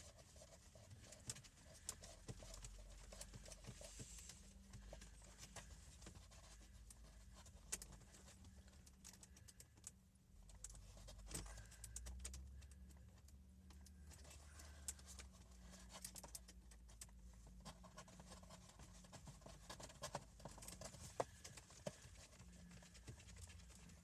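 Faint, scattered clicks and taps of a screwdriver and fingers working on a car's plastic dash trim and screws, over a low steady hum.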